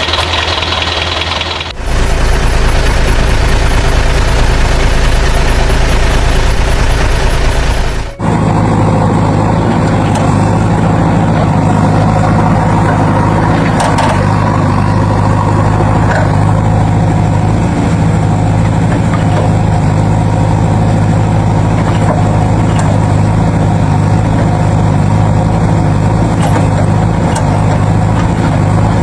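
A heavy vehicle engine runs loudly and steadily. The sound changes abruptly twice, about two seconds in and about eight seconds in, and settles into a steady low hum for the rest.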